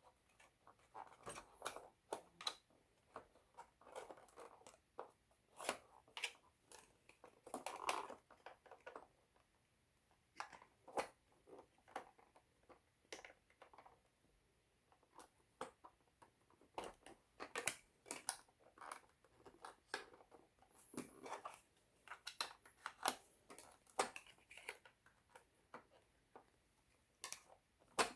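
A plastic card worked around the seam of a Husqvarna Viking Designer 1 sewing machine's plastic housing to pry the cover off: scattered faint clicks, taps and short scrapes, with quiet pauses between them.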